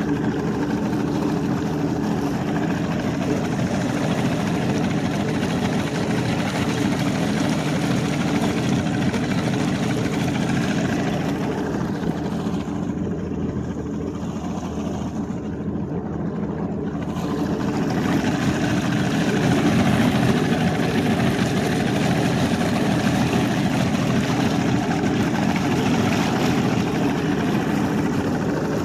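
Outboard motor of a 1989 Ranger 350V bass boat running steadily under way, with wind and water rushing past the hull. It eases slightly in the middle and comes up again soon after.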